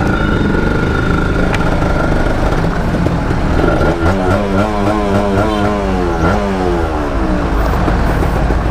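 Motorcycle engine running while riding, with heavy wind rumble on the microphone. From about three and a half seconds in, the engine pitch falls steadily for several seconds as the bike slows.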